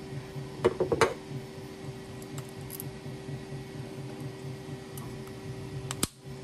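Small handling clicks of 3D-printed plastic fidget spinner parts being fitted together by hand: a couple of clicks about a second in and one sharp click near the end as a part is pressed into the spinner body, over a steady low hum.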